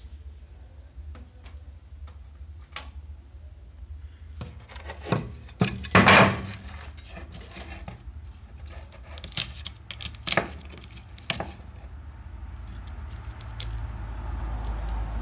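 Scattered clicks, taps and clatters of a damaged oval loudspeaker's metal frame and parts being handled and picked apart on a wooden table, the loudest clatter about six seconds in. A steady low hum runs underneath, and a rubbing, scraping noise builds near the end.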